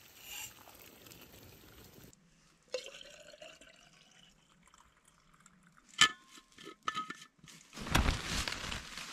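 Water bubbling at the boil in a small pot on a camping gas stove, then hot water poured into a bottle with the pitch of the pour rising as it fills. A sharp metallic clink follows about six seconds in. Near the end comes the loudest sound, a burst of rustling as the tent's fabric door is pulled open.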